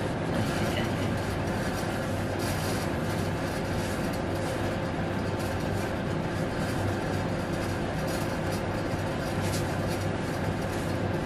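Steady low hum with an even hiss, constant in level throughout.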